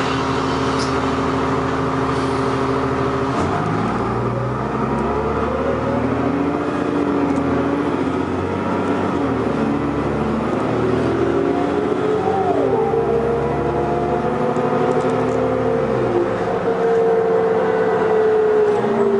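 New Flyer D40LF transit bus engine running steadily, then pulling away about three seconds in. The engine note climbs and drops back as the automatic transmission shifts up through the gears, then settles into a steady higher pitch near the end.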